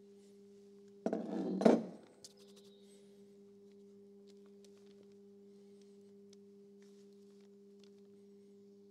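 Locking pliers working a tight pin on the Eckold Handformer's linkage: a loud burst of metal scraping and knocking about a second in, under a second long, followed by a few light clicks of small metal parts being handled. A steady two-tone hum runs underneath throughout.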